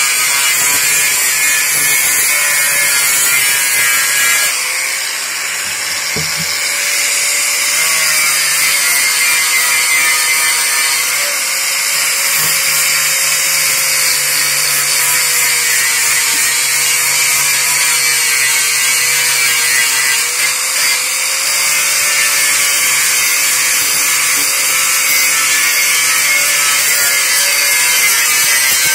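Electric angle grinder with an abrasive disc running continuously, grinding paint off a CD 100 SS motorcycle's steel fuel tank. It makes a steady motor whine that wavers slightly in pitch as the disc is pressed onto the metal, over a harsh high scraping hiss.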